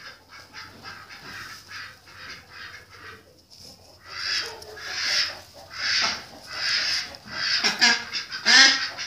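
Domestic duck quacking over and over: faint, quick quacks at first, then louder, raspy quacks about once a second from about four seconds in.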